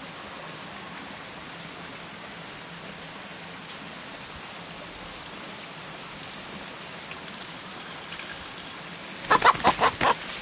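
A steady outdoor hiss, then near the end a rooster gives a quick run of about five loud squawks among rustling branches as it is grabbed in the bush.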